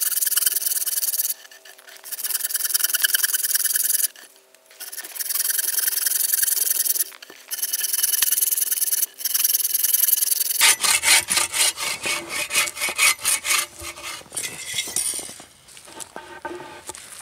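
Hand saw cutting through a log with steady push-pull strokes, in runs of a few seconds broken by short pauses. After about ten seconds the strokes turn short and quick, then die away near the end.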